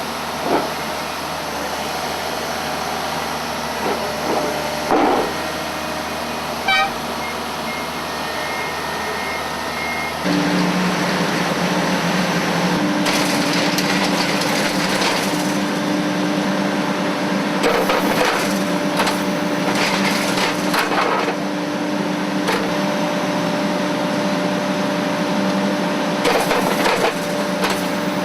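Heavy track machinery working: a steady mechanical noise with scattered knocks. About ten seconds in, it gets louder and a steady low hum sets in, with repeated rattling knocks on top.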